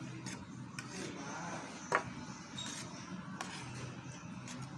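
Metal spoon clinking and scraping on a plate while scooping up food, a few separate clicks with one sharp clink about two seconds in.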